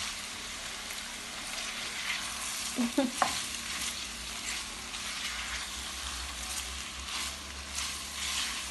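Spaghetti with saltfish sizzling in a frying pan while being stirred, with repeated short scrapes of the utensil against the pan. A brief pitched sound about three seconds in is the loudest moment.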